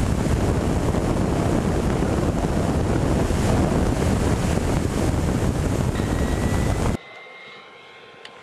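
Loud rushing wind and motor noise on a camera mounted on a radio-controlled model airplane in flight. About seven seconds in it cuts off abruptly to a much quieter ground-level sound with a faint thin whine, the model heard from far off.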